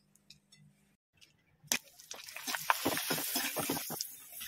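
Hot oil sizzling and crackling as fryums fry in a steel kadhai. It starts about a second and a half in, after a brief near-silence, as a steady hiss with many quick crackles.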